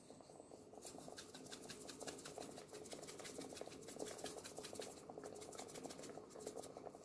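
Pot of fish and vegetable stew simmering: faint, rapid bubbling and popping of the broth.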